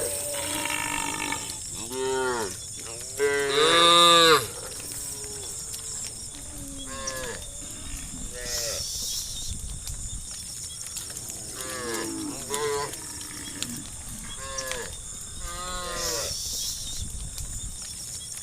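Herd of cattle mooing, one call after another with some overlapping. The loudest is a long moo about three to four seconds in.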